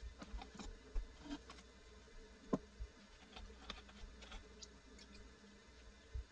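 Electric pottery wheel running with a faint steady hum, with scattered small wet taps and clicks from a sponge and fingers working the wall of a wet clay cylinder; the audio is played at double speed.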